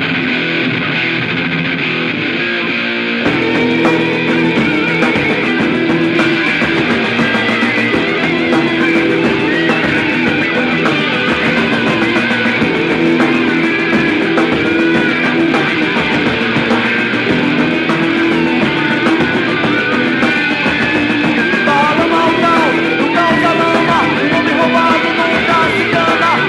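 Rock music without vocals: guitar riffs over drums, coming in louder and fuller about three seconds in.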